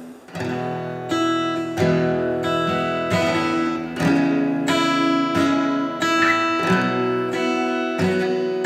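Acoustic guitar being strummed, ringing chords struck about once a second, starting just after the beginning.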